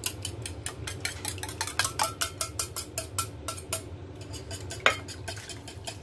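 Metal wire whisk clicking rapidly against a metal bowl and then a stainless-steel saucepan, several strokes a second, beating eggs into chocolate milk, with a louder clink about five seconds in.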